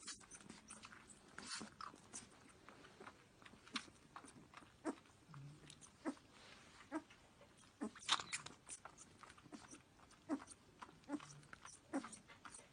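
A pet animal chewing: faint, irregular crunches and clicks with quiet gaps between them.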